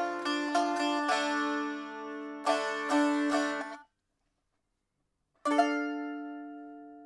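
Baglamakis, a small metal-strung long-necked lute, picked in a quick run of melody notes that stops abruptly about four seconds in. After a second and a half of silence a single strummed chord rings out and slowly fades. It is recorded through a Shure SM57 dynamic microphone.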